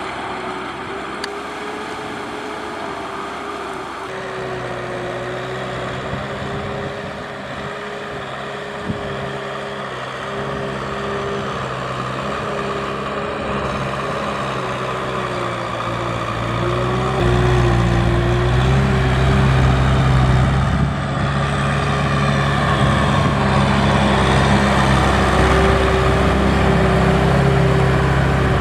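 A Kubota M6040 tractor's diesel engine running as it pulls a trailer through deep paddy mud. The engine gets noticeably louder a little over halfway through. A steady, slightly wavering whine of drone propellers sits above it throughout.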